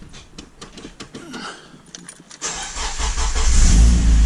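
Keys jingling and clicking in the ignition, then a Honda K-series engine in an EG Civic cranks briefly and catches about three seconds in, settling into a steady run. The engine is starting on a newly fitted Walbro 255 in-tank fuel pump.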